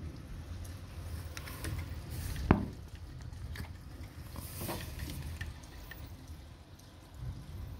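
Rain dripping and pattering onto nearby surfaces, with scattered small taps over a low rumble and one sharp, louder tap about two and a half seconds in.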